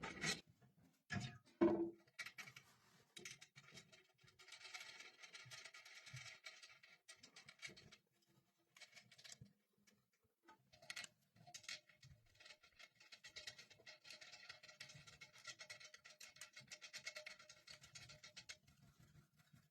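A few sharp knocks, then long stretches of fine scratching and rubbing, typical of hands working plastic cistern fittings.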